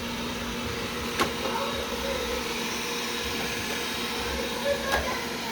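Wyze robot vacuum running with a steady hum and whir, with a sharp click about a second in and another near the end.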